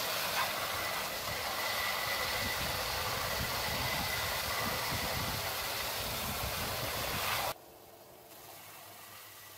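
Bench belt sander running, with a wooden pallet board pressed against the moving belt being sanded: a steady grinding rush with a faint high whine. About seven and a half seconds in it cuts off abruptly to a much quieter steady background.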